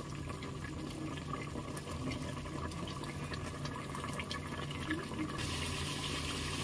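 Chicken korma bubbling and simmering in an open aluminium pressure cooker as its water cooks off, over a steady low hum. About five seconds in, the sound turns hissier: the drier curry sizzling as it fries in its separated oil.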